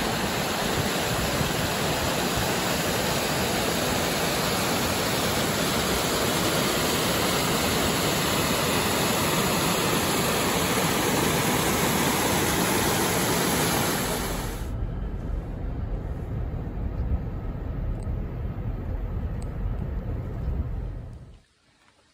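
Stream water rushing and spilling over rocks in a small cascade, a steady loud hiss. About fifteen seconds in it drops to a quieter wash with a low rumble underneath, and it cuts off to near silence near the end.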